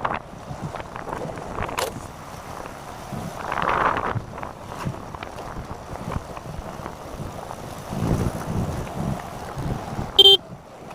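Wind and road noise from a moving vehicle buffeting the microphone. A short, loud beep sounds near the end.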